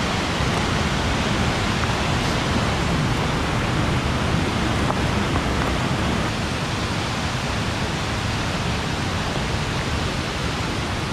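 Waterfall rushing close by: a steady, loud wash of falling water.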